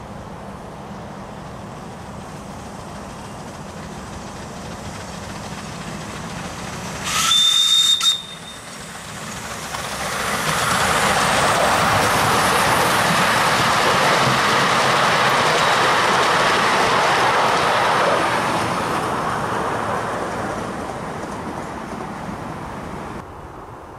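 Miniature steam locomotive gives one short whistle blast, about a second long, then passes hauling a rake of open passenger carriages. The rush of steam and wheels on rail swells, holds for several seconds and fades away.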